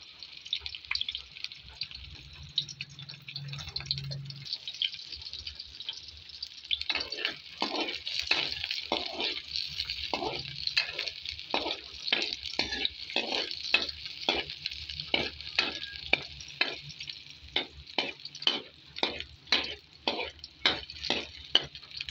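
Chopped garlic and onion sizzling steadily in hot oil in a wok. From about a third of the way in, a spatula stirs them with repeated scraping strokes against the pan, roughly one or two a second.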